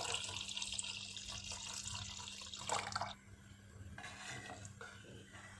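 Thick coconut milk being poured into a pot of milk payasam, a steady liquid pour that stops suddenly about three seconds in.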